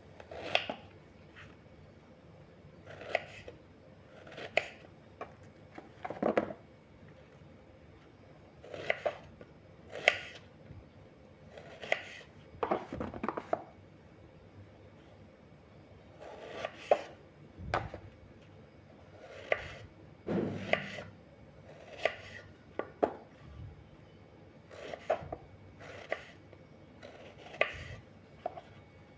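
Kitchen knife cutting through raw purple eggplant and striking a wooden cutting board, in irregular single cuts about a second or two apart.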